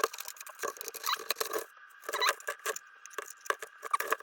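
Hard plastic body parts of a 1:10 RC truck clicking, tapping and squeaking in quick irregular bursts as they are worked out of their press-fit mounts by hand.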